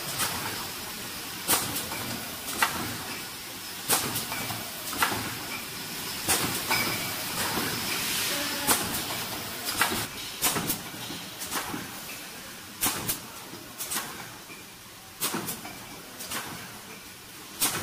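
Automatic bottle screen printing machine running: a string of sharp, irregular clacks from its moving parts every second or so, over a steady hiss that swells for a moment about eight seconds in.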